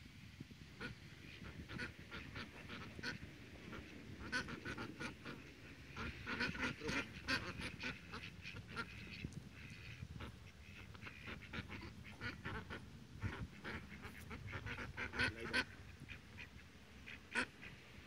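A small flock of ducks quacking, with short calls repeated throughout and busier flurries of quacks about a quarter of the way in and again near the end.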